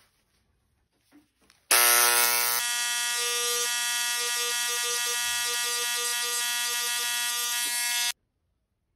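Handheld electric engraving pen buzzing as its tip engraves a logo into a metal brooch: it starts abruptly about two seconds in, loudest at first, holds a steady, very loud buzz, and cuts off sharply near the end.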